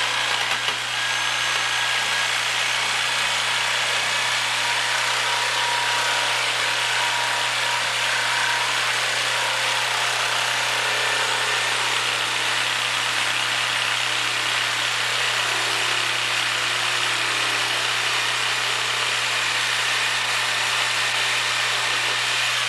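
Power tool running steadily under load, cutting through the plastic PAX run-flat support ring inside the tire; it stops right at the end.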